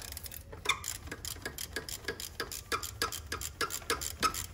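Socket ratchet clicking in rapid, even strokes as it is swung back and forth to loosen a bolt.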